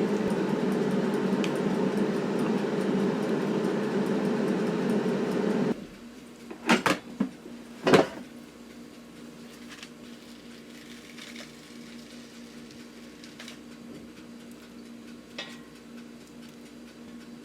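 A kitchen appliance hums loudly and steadily, then cuts off abruptly about six seconds in. A few sharp clatters of dishes follow, and after that only a faint low hum remains.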